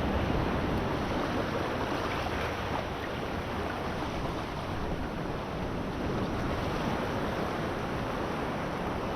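Small ocean waves washing steadily over a rock ledge, with some wind noise on the microphone.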